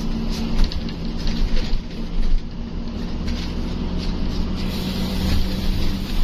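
Bus engine running steadily under road noise, heard from inside the moving bus, with scattered brief rattles.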